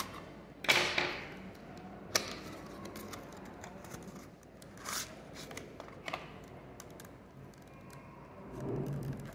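A pocket knife slits the tape seal on a small cardboard box, with the loudest scrape about a second in. Then cardboard flaps and a clear plastic tray are handled, with scattered light clicks and rustling.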